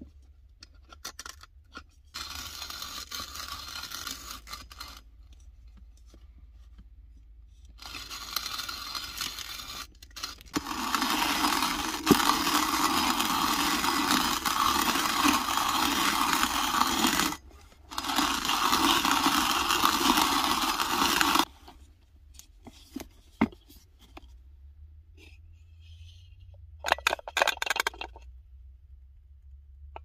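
Hand-cranked coffee grinder with a wooden box and metal hopper grinding whole coffee beans, in stretches. Two shorter, quieter spells come first, then two long, louder runs from about ten to twenty-one seconds in, with a brief stop between them. After that there are only light clicks and knocks, and a short burst of grinding near the end.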